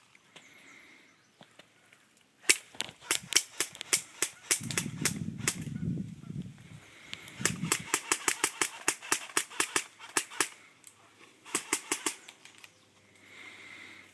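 Airsoft guns firing a rapid string of sharp single shots, about four to six a second, in three runs with short pauses between.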